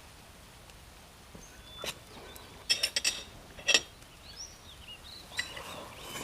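A few sharp clinks of dishes and tableware at a meal, with small birds chirping faintly in the background.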